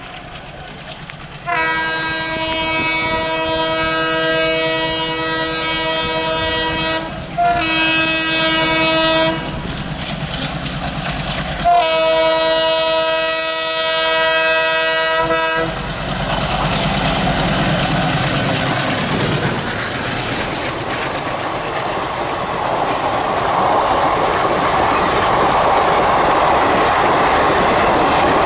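Air horn of an Indian Railways WAP-7 electric locomotive sounding three blasts, a long one of about six seconds, a short one, then one of about four seconds. The express train then passes with rising rumble and wheel clatter.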